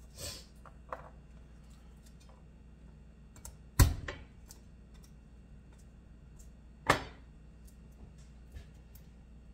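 Garlic cloves crushed under the flat of a chef's knife on a wooden cutting board: two sharp thumps about three seconds apart, the first the louder. Between them come faint papery rustles and small clicks of garlic skins being peeled.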